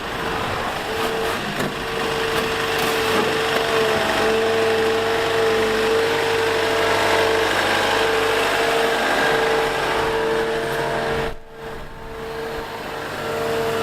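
Liebherr A 910 compact wheel excavator's diesel engine running under working load, with a steady high whine over it. The sound drops away briefly about eleven seconds in, then picks up again.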